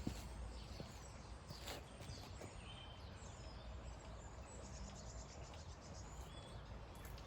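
Faint outdoor ambience with a few short, high bird chirps and a brief fast trill about two-thirds of the way through.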